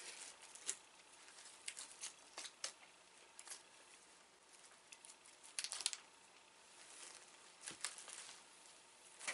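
Snack packaging being handled and opened: faint, scattered crinkles and clicks, with the loudest cluster about six seconds in.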